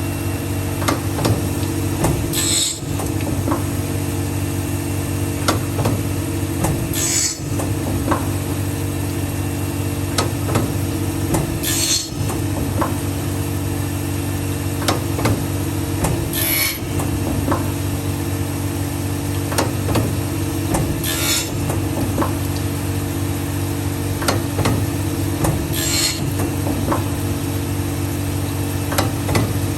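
CNC saw blade sharpening machine running with a steady motor hum and light clicking, and a brief high scraping burst about every five seconds as it grinds the carbide-tipped blade tooth by tooth.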